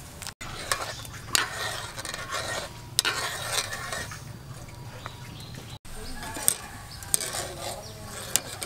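A metal spoon and a wire skimmer clink and scrape against an aluminium pot, with water sloshing as dough balls are stirred and scooped in hot water. There are several sharp clinks.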